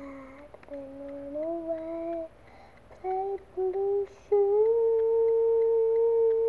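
A young girl humming a slow, wordless tune: a few short held notes, then one long steady note through the second half.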